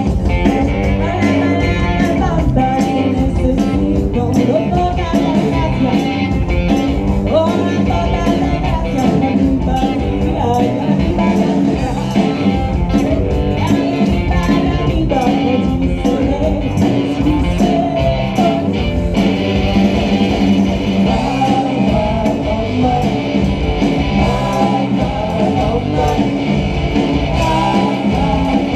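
Live rock and roll band playing, with guitar, singing and a steady beat.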